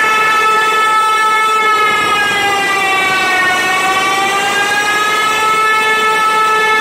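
A DJ sound system playing a loud, sustained electronic tone with a rich set of overtones. Its pitch sags slowly about halfway through and then rises back to where it started.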